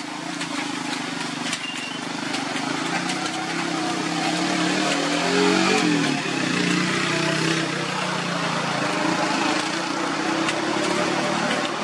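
Diesel engine of a Hino truck carrying a shipping container, running under load as the truck creeps up over a wet, broken road. The engine note shifts in pitch and grows loudest about halfway through.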